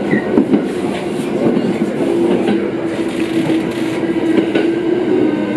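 Inside an E217-series commuter train running slowly into a station: running noise with wheels clacking over rail joints, and a steady low hum that comes in about two seconds in.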